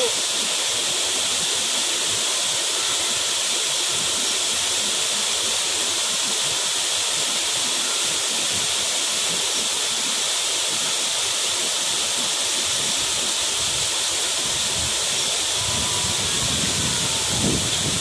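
Waterfall: several cascades pouring down a rock face into a plunge pool, a steady rushing hiss. Near the end a low rumble joins in.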